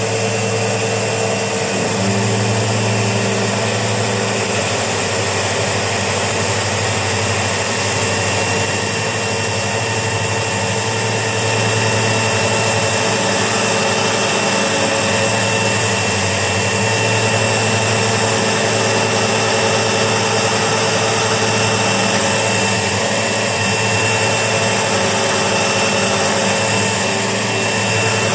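Sebo X4excel upright vacuum cleaner running steadily, its motor holding a constant pitch with a high airflow hiss.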